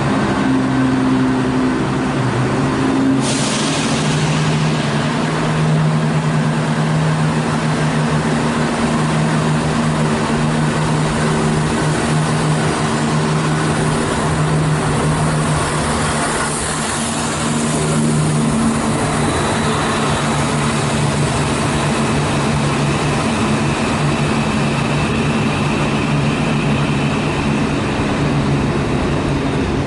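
Electric multiple-unit trains at a station platform, with a steady electric hum throughout. A sudden hiss comes about three seconds in and a faint high whine joins in the last third.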